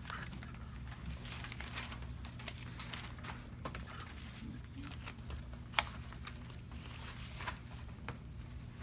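Paper and booklets rustling and being handled on a table, with scattered light taps and clicks and one sharper tap about six seconds in, over a steady low hum.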